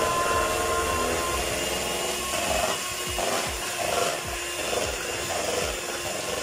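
Electric hand mixer running steadily, its beaters whisking chocolate cake batter smooth after flour has been added.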